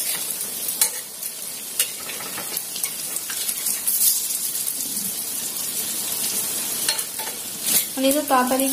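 Pakoras deep-frying in hot oil in an iron karahi: a steady sizzle, with scattered clicks and scrapes as a spatula turns them over in the pan.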